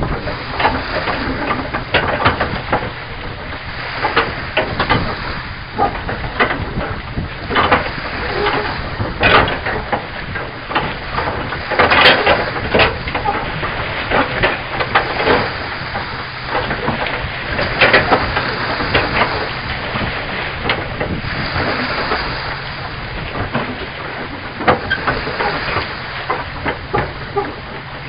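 Small waves lapping and splashing: a run of uneven splashes over a steady rushing wash of water.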